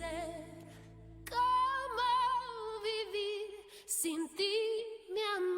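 Soft song from the film's end credits: a low held accompaniment note fades out, then a woman's voice comes in about a second in, singing slow held notes with vibrato.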